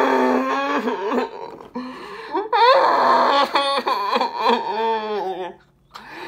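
A young man wailing and crying out in anguish, an exaggerated breakdown. The drawn-out cries waver and slide up and down in pitch, broken by short gaps, and drop out briefly near the end.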